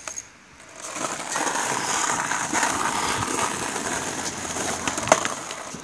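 Skateboard wheels rolling on pavement, starting up about a second in, with one sharp clack of the board near the end from a moving ollie.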